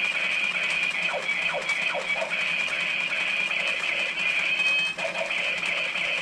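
Plastic toy chainsaw running on a bench power supply at about 4.6 volts: a steady high-pitched buzz, with a few falling electronic sweeps between one and two seconds in.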